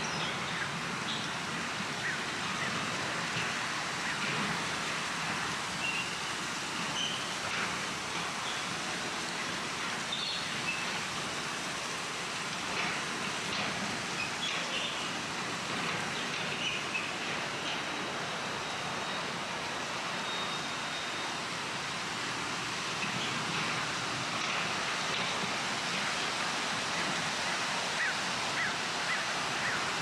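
Gentle breeze rustling tree foliage and fallen leaves, an even steady hiss, with a few faint short bird calls here and there.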